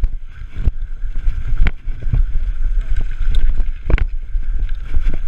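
BMX bike ridden at speed on a dirt track, heard from a camera mounted on the bike: a steady low rumble of wind buffeting and tyres rolling, broken by several sharp knocks and rattles from the bike over bumps, one of the loudest about four seconds in.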